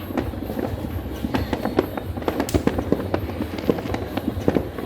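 Many firecrackers and fireworks going off at once, a dense, unbroken string of overlapping bangs and cracks, some near and sharp, others further off.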